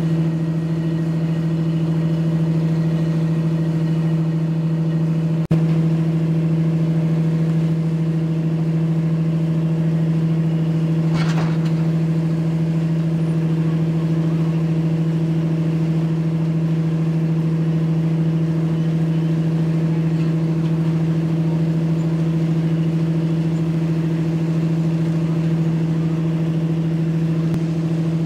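An engine running steadily, a low unchanging hum with a few overtones, with a single sharp click about five and a half seconds in.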